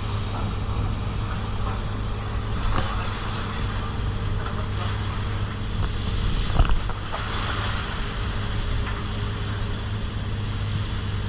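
Fishing boat's engine running with a steady low drone, under the rush of wind and rough sea. A loud thump about six and a half seconds in.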